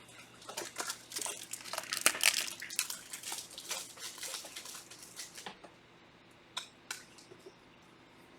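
Trading card packs and cards being handled: wrapper crinkling and card rustling that dies down about five and a half seconds in, followed by two light taps.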